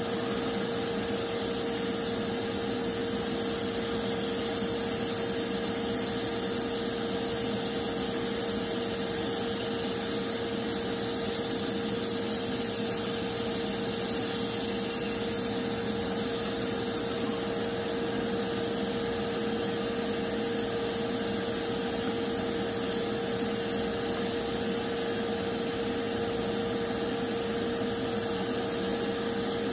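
Bandsaw running steadily with an even hum, its blade slicing through a round section of log.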